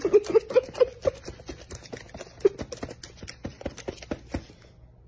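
Laptop keyboard keys clicking and clattering in quick, irregular taps under the feet of a white-bellied caique hopping and stepping about on them. The taps thin out near the end.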